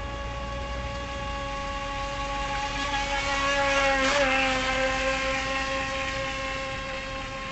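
Feilun FT009 RC speedboat's electric motor whining at a steady high pitch as the boat runs on the water. It gets louder as the boat passes about four seconds in, the pitch dropping slightly as it goes by, then fades a little.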